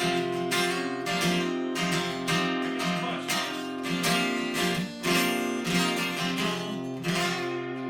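Acoustic guitar strumming the closing chords of a song, ending on a chord left to ring out near the end.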